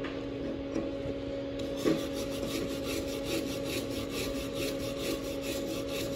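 Metal hand tool scraping and scrubbing the slag off a freshly laid 6010 fillet weld on steel plate, in quick even strokes about four a second, starting about a second and a half in. A steady low hum runs underneath.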